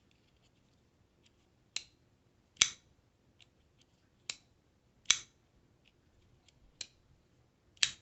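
Kershaw Oso Sweet folding knife with SpeedSafe assisted opening, its blade being snapped open and clicked shut again and again. There are about six sharp clicks, with faint small ticks from handling in between.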